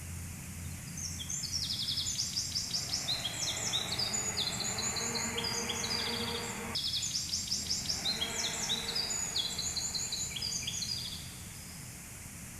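Bird song: two long phrases of rapid, high, falling chirps and trills, the second starting about seven seconds in, over a low steady hum.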